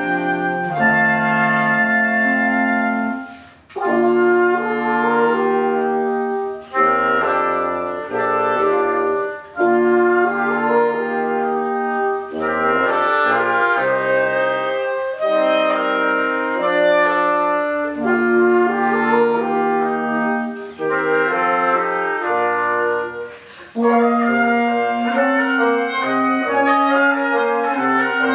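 Woodwind quintet of flute, oboe, clarinet, French horn and bassoon playing a classical piece together, in phrases broken by several short breaks.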